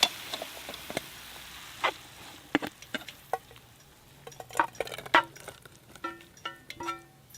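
Cooking in a Trangia 25 cook-kit pan: a utensil scrapes and clinks against the metal pan, with a light sizzling hiss that fades early. Near the end comes a quick run of short ringing metal taps, like a spoon or spatula knocked on the pan's rim.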